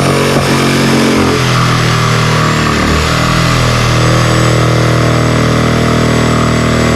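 An engine running steadily and hard under load, a machine or vehicle working to pull down a shed.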